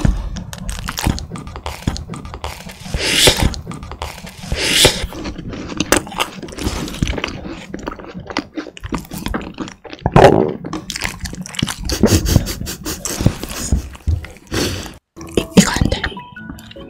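Close-miked eating sounds: a run of sharp clicks, crackles and wet mouth noises, with a few longer hissy swells.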